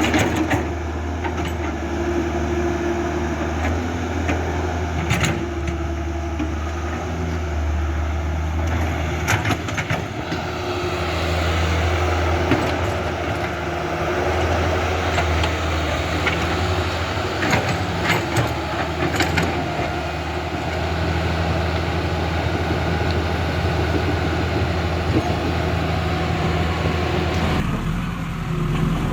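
Radio-controlled model construction machines, an excavator, a bulldozer and a truck, working with their motors and hydraulic pump humming steadily, with scattered clicks and knocks. The sound changes abruptly near the end.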